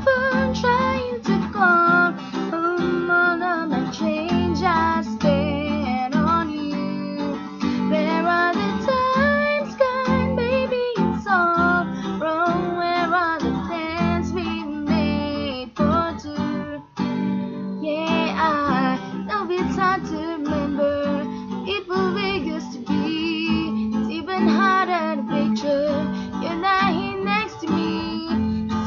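Acoustic guitar strumming under a high voice singing a melody, with a brief break about seventeen seconds in.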